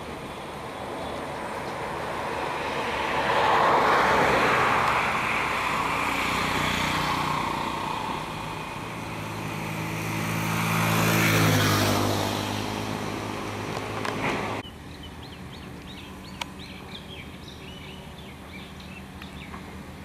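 Motor vehicles passing by: a swell of engine and road noise that peaks about four seconds in and again around eleven seconds, the second pass with a clear low engine hum. It cuts off abruptly about two-thirds through, leaving a quieter outdoor background with faint high chirps and a single click.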